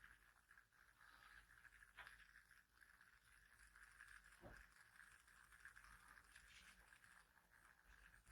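Near silence: faint steady room tone with a thin hiss, broken by a couple of soft, faint clicks about two and four and a half seconds in.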